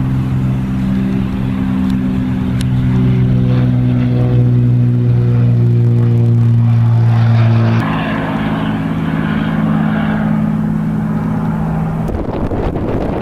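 Single-engine Cessna's piston engine and propeller at full takeoff power: a loud, steady drone as it rolls and lifts off. The pitch drops abruptly about eight seconds in, and near the end the drone gives way to wind-like noise.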